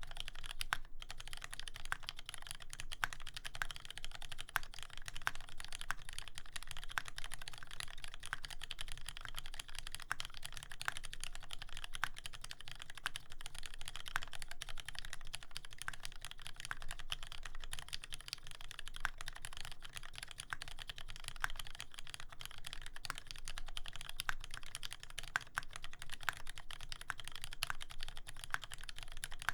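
Continuous typing on a custom mechanical keyboard with brass plate, lubed linear Cherry Black-style switches (70 g springs) and GMK keycaps: a steady stream of keystrokes with a deep, dampened clack.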